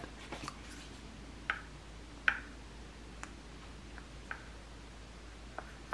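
A few faint, separate clicks and taps from handling a glass foundation bottle and its cap, about five of them spread over a few seconds, over quiet room tone.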